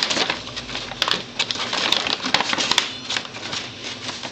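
Paper bag crinkling and rattling in quick, irregular crackles as a cat thrashes about inside it, easing off near the end.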